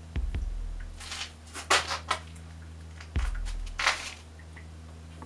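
A steady low hum with a deep throb repeating about every three seconds, and brief rustling, hissing noises over it.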